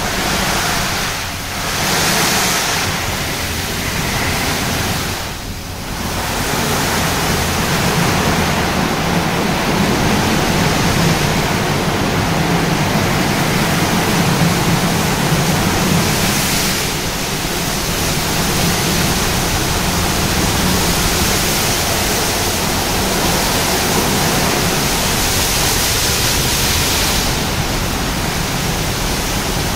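Tammermatic T700 automatic car wash in its polishing stage, its rotating brushes working over the car: a steady rushing noise that dips briefly twice in the first six seconds.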